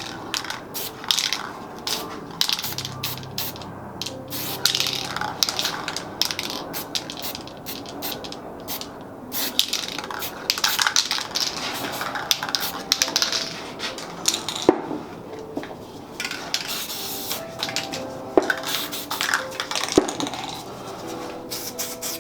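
Aerosol spray paint cans hissing in many short, quick bursts, mixed with sharp clicks and clatter of cans and tools on the painting surface.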